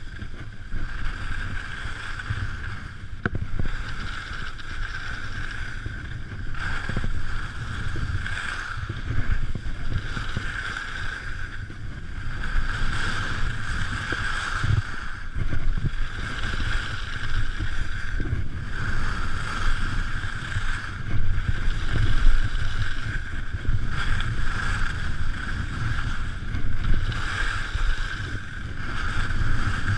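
Skis running and carving on the piste, with wind buffeting the camera microphone: a steady low rumble under a scraping hiss that swells and fades every second or two.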